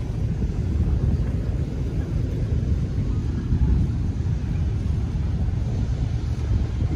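Wind buffeting the microphone: a loud, gusty low rumble with no clear pitch, which drops off suddenly near the end.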